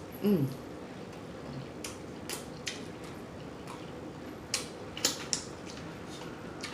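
Close-up eating sounds: scattered wet clicks of chewing and lip smacking. Just after the start there is a short hum from the eater that falls in pitch.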